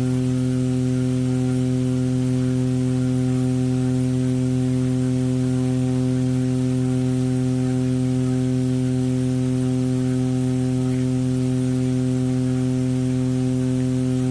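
Asahi LS-9003 9-inch floor fan running steadily: a motor hum with the even rush of air from the blades.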